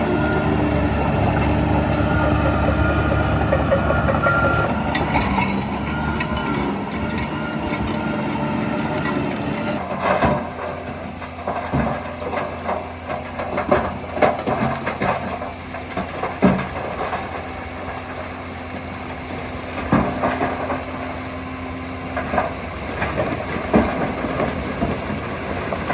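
Heavy diesel earthmoving machine running steadily, then from about ten seconds in the engine drops back and a string of sharp metallic clanks and knocks comes over its lower hum.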